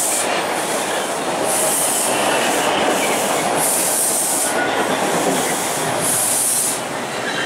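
TTC T-1 subway train running along open track, a steady rolling rumble of wheels on rail. A high hiss swells and fades about every two seconds, and the sound eases slightly near the end.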